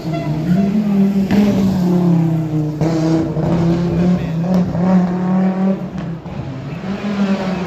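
Rally car engine at high revs, its note rising and dropping several times as it accelerates and shifts.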